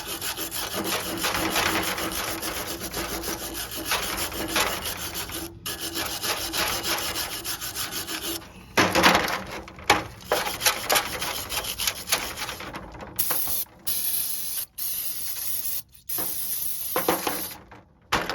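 Wire brush scrubbing rust and debris from the brake caliper bracket where the pad clips sit, in quick back-and-forth strokes. The scraping is continuous for about eight seconds, then goes on in shorter spells with brief pauses.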